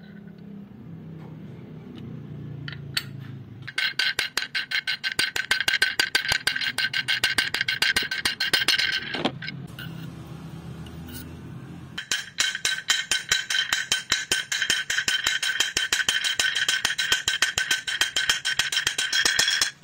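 Ball bearing on a small motorcycle crankshaft being spun, giving a rapid metallic rattling buzz with a steady ringing tone, in two spells of several seconds.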